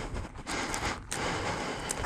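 Footsteps crunching on dry, rocky dirt, a few steps about half a second apart.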